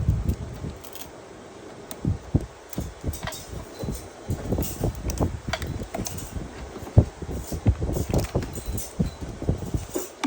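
Irregular knocks and clinks of hand tools and small metal parts being handled during hands-on repair work, with no engine running.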